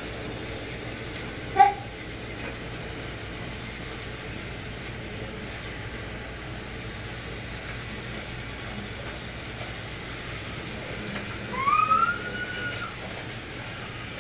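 Battery-powered TrackMaster toy trains running steadily on plastic track. One short, sharp, loud high sound about a second and a half in, and a high call that rises then holds for about a second near the end.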